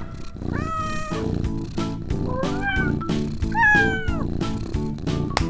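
A cat meowing three times, each a short cry gliding up or down in pitch, over upbeat background music with a steady beat.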